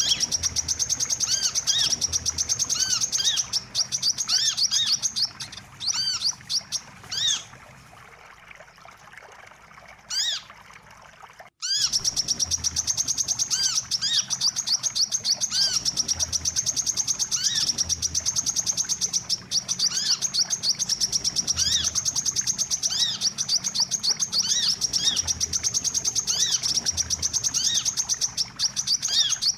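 Recorded lure call of a wiceh sunbird: a fast, high, continuous trill with short arched chirps repeating beneath it. It drops away for a few seconds about a third of the way in, then starts again.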